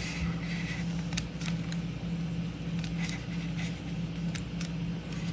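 Scattered light clicks and knocks from handling a plastic air pistol and a flashlight, over a steady low hum.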